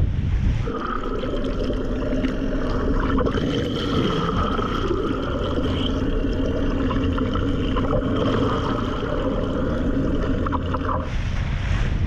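Underwater sound beneath a sailing catamaran's hull: water rushing and gurgling past the camera, with several steady humming tones running through it. Wind buffeting the microphone and waves are heard briefly at the start and again near the end.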